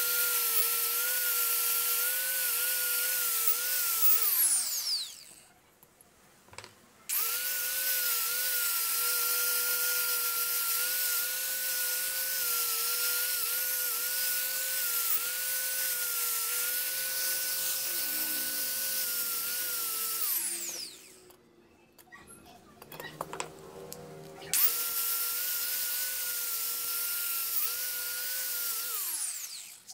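Makita angle grinder running with a steady whine as its disc works the steel hacksaw frame. It is switched off and spins down three times, at about four seconds, about twenty seconds in and near the end, and starts up again after each pause.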